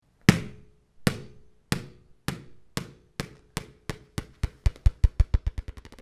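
A ball bouncing on a hard surface, about twenty bounces that come faster and closer together until they run into a quick patter near the end, as a ball does when it settles. Each bounce carries a short ringing note.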